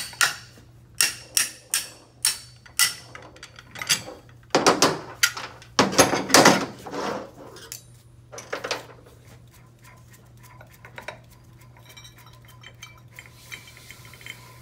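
Steel tools clinking and clanking as a puller and lock tool are worked off a CVT variator pulley. First comes a run of sharp metallic taps about twice a second, then a heavier clatter of metal parts a few seconds in, then only light occasional clinks.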